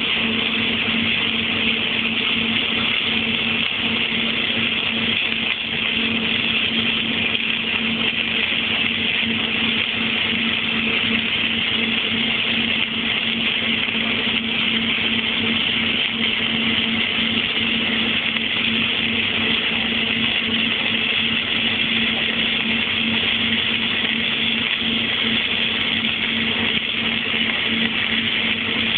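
Innershield flux-cored arc welding: a continuous steady hiss with a constant underlying hum, unbroken throughout.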